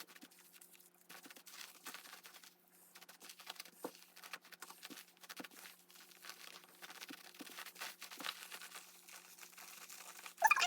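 Wet, soapy cotton stuffing being squeezed and pulled apart by hand, giving soft, irregular crackling and tearing. A short high-pitched voice-like sound comes right at the end.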